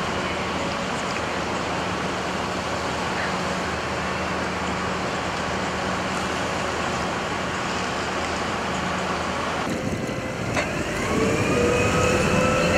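A small riverboat's engine running steadily, with water and wind noise, as the boat glides along. After a cut about ten seconds in, a boat engine revs up and back down for about three seconds as the boat pulls alongside, giving a whining tone that rises and falls.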